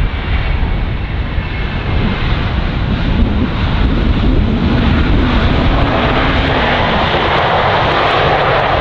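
Boeing 747's four jet engines at high power as the jet rolls past on its takeoff run: a heavy, steady roar with a faint high whine, growing louder through the first half and then holding.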